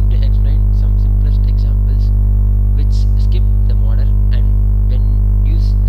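Loud, steady electrical mains hum, a low buzz with many overtones, with a faint voice underneath.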